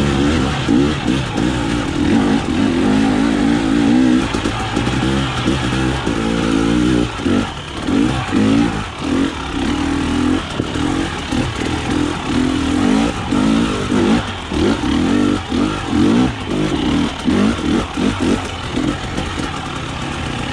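KTM dirt bike engine running under the rider, its note rising and falling for the first several seconds. From about seven seconds in, the throttle is opened and closed over and over as the bike works over a rocky trail.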